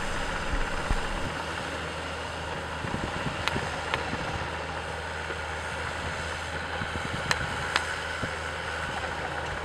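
A Yanmar compact excavator's diesel engine running steadily, with a few sharp clicks on top.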